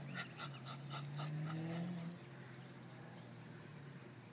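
French bulldog puppy breathing hard in quick short pants, about four a second, which stop about two seconds in; a steady low hum runs underneath.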